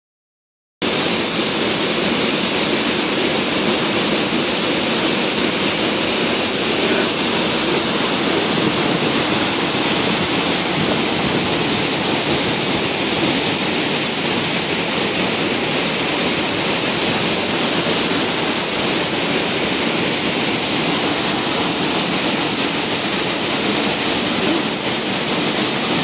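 Steady rush of a waterfall, water cascading down a rock face into a pool, starting abruptly just under a second in and holding unchanged.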